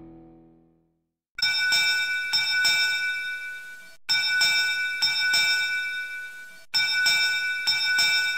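Background music fades out in the first second. After a short silence a bright, bell-like chime jingle starts, with quick repeated strikes about three a second, in three phrases that each start loud and fade: one near the start, one about four seconds in and one near the end.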